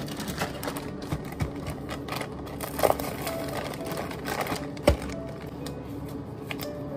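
Clicks, clatter and rustling of plastic cups, metal tongs and a plastic bag being handled on a café counter, with a sharp knock about five seconds in.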